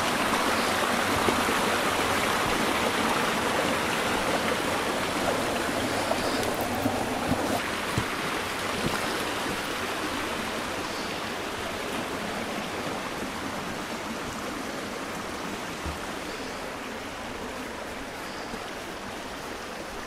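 A shallow, rocky river rushing over stones, a steady hiss of running water that slowly fades, with a few faint knocks in the first half.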